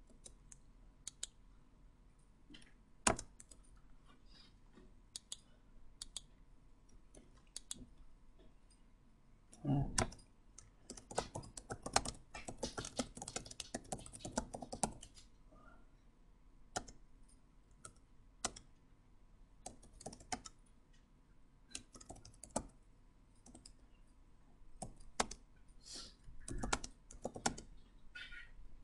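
Typing on a computer keyboard: scattered single key presses and clicks, with a fast run of typing about eleven to fifteen seconds in.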